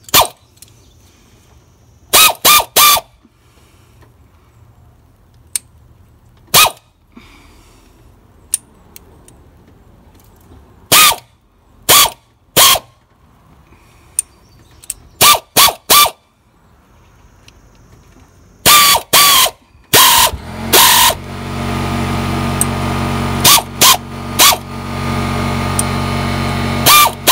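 Hand ratchet clicking in short runs of two or three as it turns a thread-repair tap into the blown-out spark plug hole of a 1999 Ford F250's Triton V10 aluminum cylinder head, a few turns in and then backed off. About two-thirds of the way in, a steady loud drone starts under the clicks.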